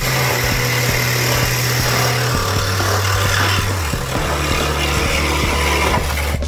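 Handheld power tool running steadily under load for about six seconds, then stopping near the end, with background music underneath.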